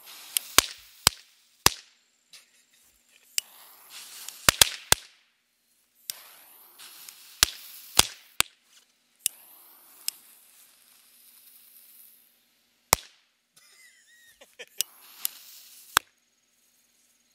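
Lady finger firecrackers stuffed into a pumpkin going off one by one: about fifteen sharp pops spaced irregularly, some in quick pairs or threes, with a hiss between some of them.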